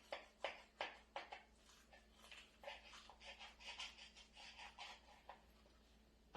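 Knife sawing through a rolled tortilla wrap: sharp strokes about three a second at first, then softer, quicker strokes that stop about five seconds in.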